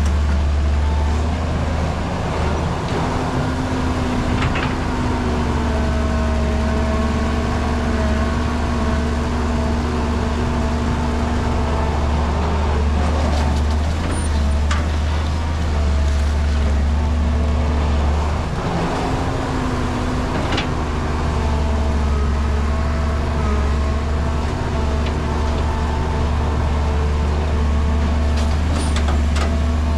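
Caterpillar crawler excavator's diesel engine running under load as it digs and swings soil into a dump truck, a steady low drone whose pitch rises and falls slightly with the work. A few sharp knocks stand out over it.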